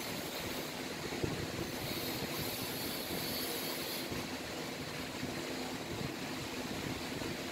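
Steady background drone: a low, even hum with faint steady tones under a constant hiss.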